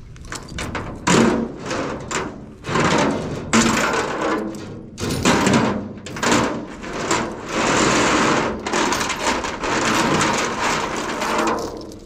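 Steel chains rattling and clinking as they are dragged across a trailer deck and gathered up by hand, in a run of noisy scrapes and rattles that dies away near the end.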